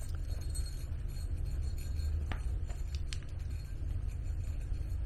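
Footsteps on a gravel trail, a few scattered crunches, over a steady low rumble on the microphone.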